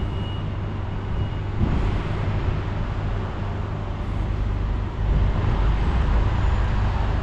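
Traffic noise: a steady rumble of vehicle engines, which grows louder about five seconds in.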